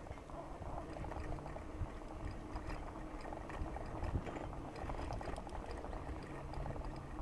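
Steady rushing of wind on the microphone over a low rumble of Schwalbe Rapid Rob bicycle tyres rolling on a smooth road.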